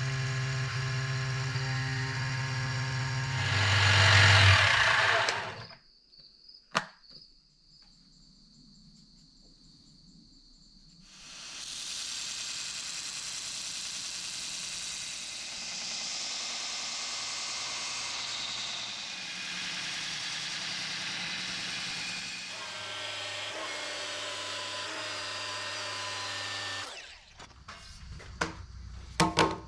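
A benchtop mini mill running and cutting a thick plate, louder for a couple of seconds near four seconds in, then stopping. After a few quiet seconds a belt grinder runs with a workpiece held against the belt for about fifteen seconds and stops, followed by a few sharp knocks near the end.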